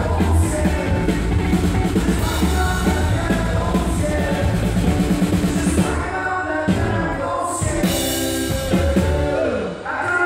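Live band playing with a man singing: drum kit, electric and acoustic guitars and fiddle. About six seconds in the steady beat drops out and the song winds down into held closing chords that slide down and end just before the close.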